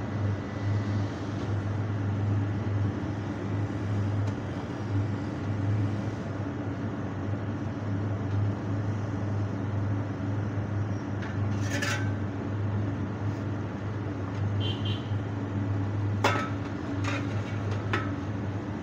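Engine of a sewer vacuum tanker truck running steadily. Several sharp metallic clinks come in the second half, as metal parts knock against each other.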